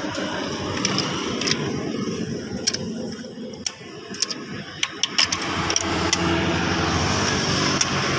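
Sharp metallic clicks and clinks of a socket wrench on a spark plug down in its well in the cylinder head, a few spread out and a quick cluster about four to five seconds in, over steady background noise.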